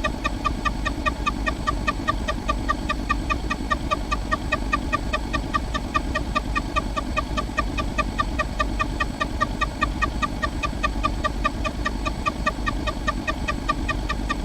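A short pitched sound effect repeated rapidly and evenly, several times a second, over a steady low rumble.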